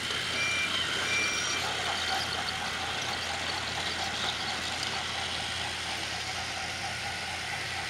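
Motorised Trackmaster toy train engines whirring as they pull wagons along plastic track, with a faint wavering whine. Two short high beeps come about half a second and about a second in.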